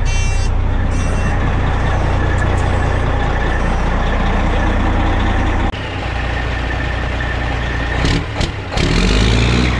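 Diesel semi-truck engine idling steadily, just started after its batteries were charged overnight. A warning buzzer in the cab beeps twice near the start.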